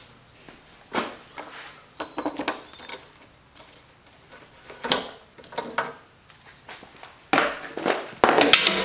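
Yamaha XT225's metal fuel tank cap being opened by hand: scattered metallic clicks and clinks about a second apart, getting busier and louder near the end.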